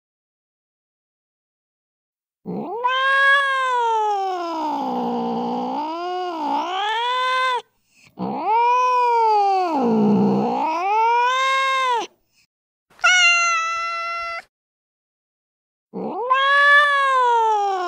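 Recorded domestic cat yowls played from a cat-sounds app: two long, drawn-out calls, each several seconds long and rising and falling in pitch, then a short steady meow, and a further long yowl that begins near the end. The first couple of seconds are silent.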